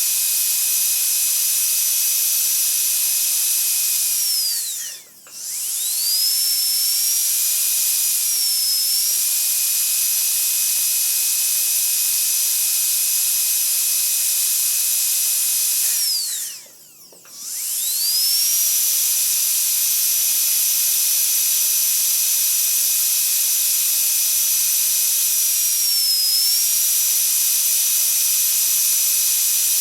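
Dentist's drill whining at a high, steady pitch. Twice, about 5 and 17 seconds in, it spins down and stops, then spins back up to speed. The pitch dips briefly near 8 seconds and again near 26 seconds.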